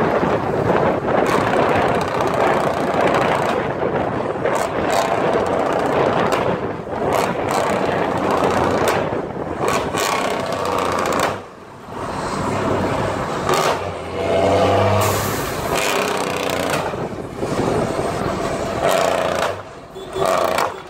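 Heavy diesel truck's engine running hard under load ahead, heard from a following car together with wind and road noise. The sound dips briefly twice, about eleven seconds in and near the end.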